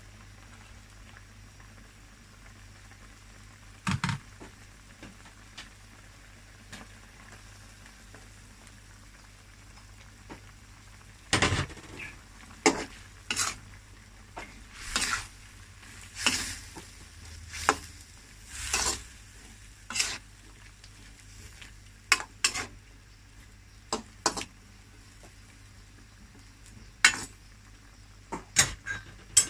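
A cooking utensil stirring and scraping in a pan of frying food, with a faint sizzle underneath. There is one knock early, then an irregular run of about a dozen strokes in the middle and a few more clicks near the end.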